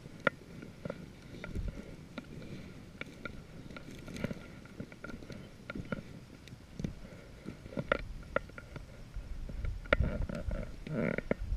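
Footsteps crunching and swishing through dry, tall grass and brush, with irregular clicks and rustles.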